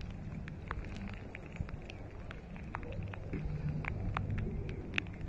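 Low, steady rumble of wind buffeting the microphone outdoors, with scattered faint irregular ticks and clicks.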